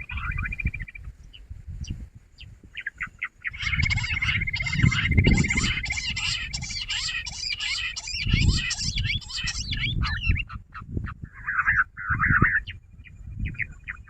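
Jungle bush quail calling: rapid, chattering calls with a fast trill, swelling to a dense burst a few seconds in and returning briefly near the end, over low rumbling noise.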